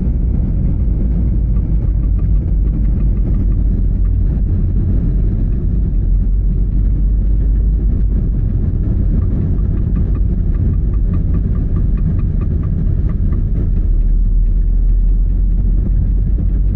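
Opel Astra J on the move: a steady, loud low rumble of road noise, with faint regular ticks around the middle. The car has a metallic knock in the front suspension from a binding inner CV joint that pushes the drive shaft against the steering knuckle.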